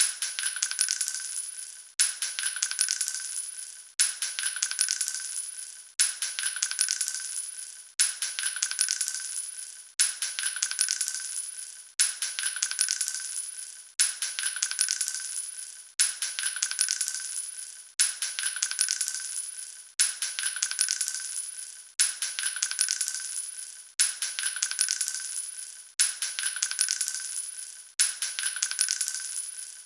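Small metal capsules dropping onto a hard floor and clinking and tinkling as they scatter, with a high metallic ring. The same drop repeats every two seconds, each time starting with a sharp clink and fading out.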